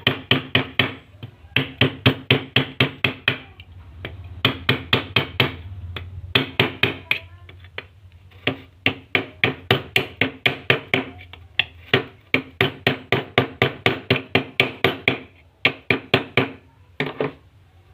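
12-volt snail horn giving rapid short beeps, about seven a second, in runs of one to three seconds with short gaps between them.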